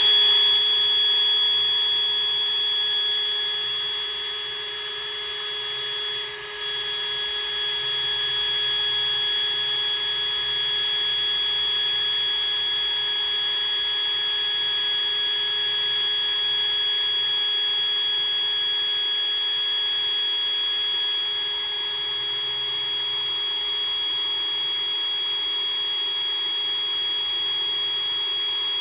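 Electric drill running steadily with a high whine, its small bit drilling out a bent, seized bolt stuck in an aluminum subframe. The level dips briefly about five seconds in, then holds steady.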